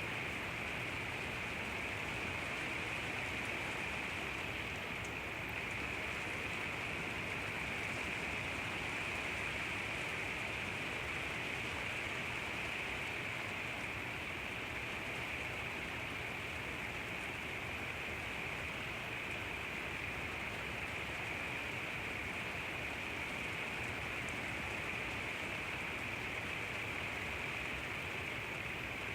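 Steady rain falling, an even hiss with no distinct drops or thunder and no change in intensity.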